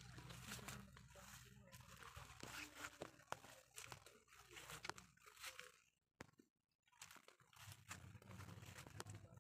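Near silence: faint rustling and crackling, cutting out to complete silence for about a second just past the middle.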